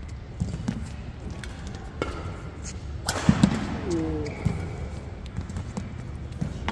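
Badminton rally: rackets striking the shuttlecock with sharp pops, the hardest hit about three seconds in, with brief squeaks of court shoes, over the murmur of a hall crowd.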